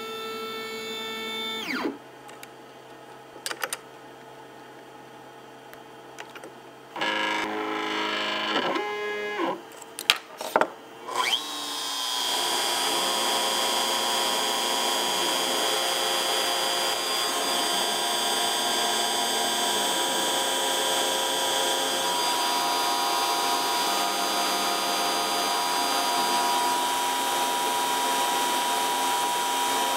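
X-Carve CNC router: the machine's motors whine in short moves that ramp up and down in pitch. About twelve seconds in, the spindle spins up with a rising whine and then runs steadily while a V-bit engraves an aluminum plate.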